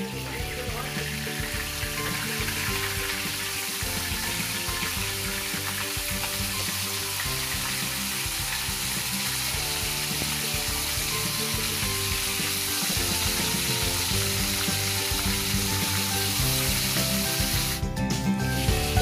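Fish pieces frying in hot oil in a non-stick kadai, a steady sizzling hiss.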